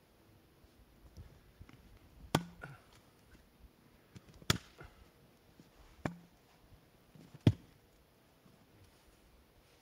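Axe blows splitting firewood on a wooden chopping block: four sharp chops, about one and a half to two seconds apart.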